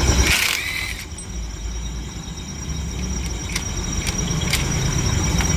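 TVS Jupiter scooter engine running with a steady low rumble and a few scattered light clicks, on a scooter that has a clutch noise problem.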